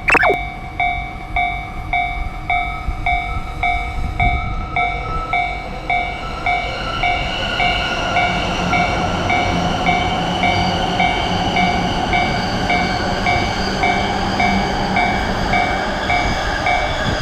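Japanese railway level-crossing bell ringing its steady, evenly repeating "kan-kan" alarm, while the running noise of an approaching train rises and gets louder from about six seconds in.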